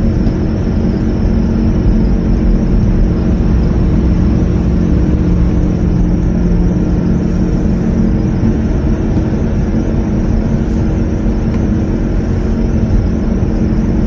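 Car running with a steady hum and a squeak that the driver thinks comes from a tire, possibly a wheel bearing coming loose.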